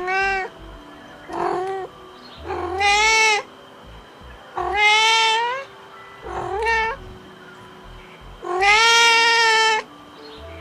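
Domestic cat meowing repeatedly: about six meows, several of them rising in pitch, the last one long and drawn out.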